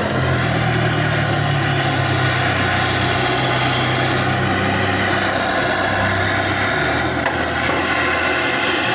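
Handheld butane gas torch flame running steadily as it singes the hair off wild boar skin.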